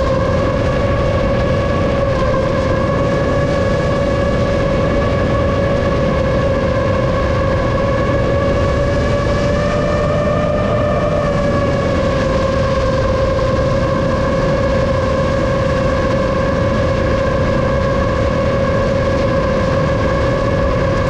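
A 7-inch FPV quadcopter's motors and propellers whining steadily over a low rushing noise. The pitch lifts slightly about halfway through, then settles back.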